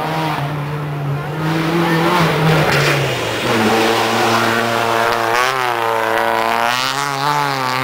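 Rally car engine under hard acceleration, its pitch dropping at a gear change a little over three seconds in, then climbing and wavering again.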